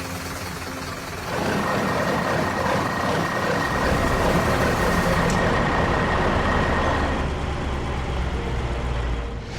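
Heavy construction machine running, its noise swelling about a second in and easing off near the end.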